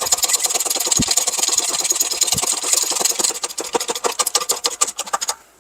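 Press driving the hub into a new front wheel bearing in the steering knuckle: a steady, rapid mechanical chattering that stops suddenly near the end.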